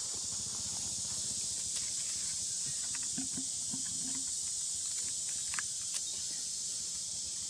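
Long-tailed macaques moving and feeding, with scattered light clicks and rustles and a few short low calls about three to four seconds in, over a steady high hiss.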